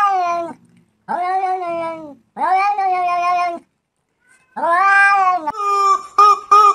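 A cat meowing: four long, drawn-out meows with short gaps between, the first already under way. About five and a half seconds in, a yellow rubber chicken toy is squeezed in quick repeated squawks of the same pitch.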